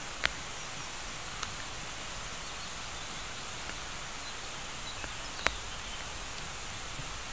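Steady hiss of rain falling on a forest nest, heard through the nest camera's microphone, with two sharp, loud taps of drops striking the camera, one right at the start and one past the middle, and fainter ticks between.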